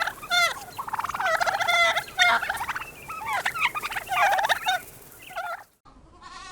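Turkey gobbling, a run of rapid, rattling calls one after another that stop shortly before the end.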